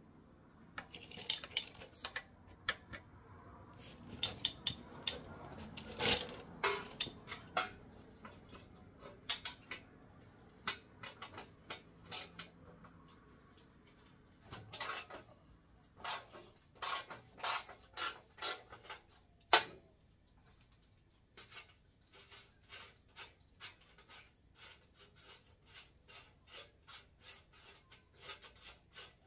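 Hand tools and metal parts clicking and clinking against a truck's steel front bumper as it is worked on, irregular at first with one sharp clank about two-thirds of the way through, then a steady run of light clicks about twice a second.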